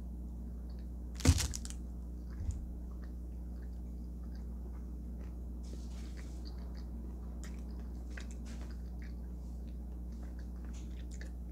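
A person chewing a bite of frosted chocolate brownie with candy sprinkles, with faint small wet clicks of the mouth, over a steady low electrical hum. A sharp thump comes about a second in, and a smaller one a second later.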